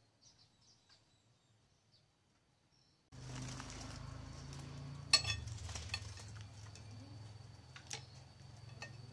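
Near silence with a few faint high chirps, then a steady low outdoor hum from about three seconds in, with a metal spoon clinking sharply against a small glass bowl and plate, the loudest clink about five seconds in and lighter ones after.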